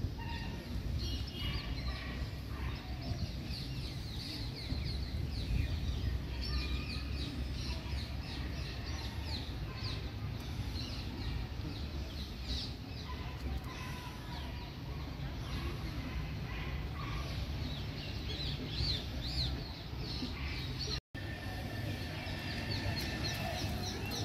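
Many birds chirping and calling at once: a dense chorus of short, high, falling chirps overlapping throughout, over a steady low rumble. The sound drops out for an instant near the end.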